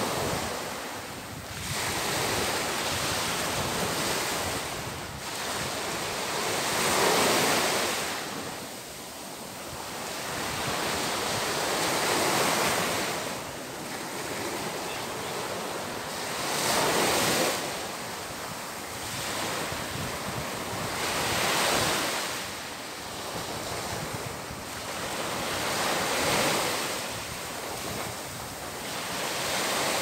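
Small ocean waves breaking and washing up a sandy beach, the surf swelling and falling back about every four to five seconds.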